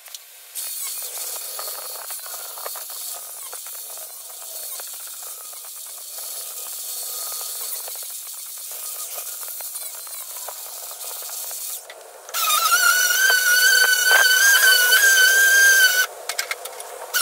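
Angle grinder grinding down the weld on a steel rail's end cap: a steady grinding noise that starts about half a second in. About twelve seconds in it gives way to a louder, steady high-pitched whine from a DeWalt cordless tool spinning an abrasive drum on the same rail end; the whine cuts out briefly near the end and starts again.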